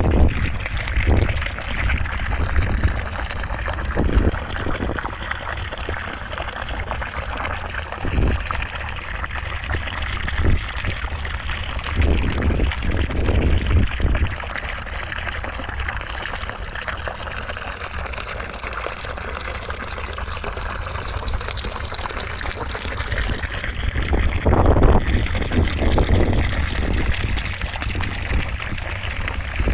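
Steady rushing white noise with a deep rumble underneath and a few soft thumps in the low end.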